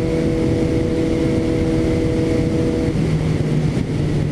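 Suzuki GSX-S750 inline-four engine running at highway speed with a steady note, under a heavy rush of wind on the onboard microphone. About three seconds in, the engine note drops as the throttle eases off and the bike slows.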